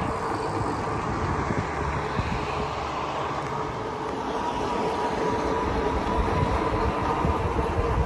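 Riding noise from an Aventon Aventure fat-tyre e-bike on pavement: wind rushing over the microphone and low tyre rumble, with a steady whine underneath.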